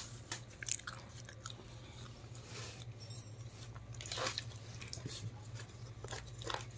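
Quiet eating: faint chewing and soft rustles and clicks as tandoor flatbread is torn and handled, over a low steady hum.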